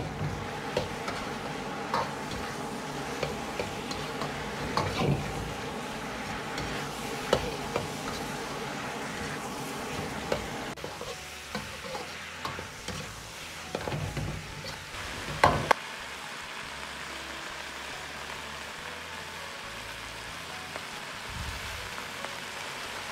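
Lamb rib pieces in chili bean paste sauce sizzling in a wok while a metal ladle stirs and scrapes them, knocking against the wok now and then; the loudest scrape comes about two-thirds of the way through. After that the ladle strokes thin out and the steady sizzle carries on.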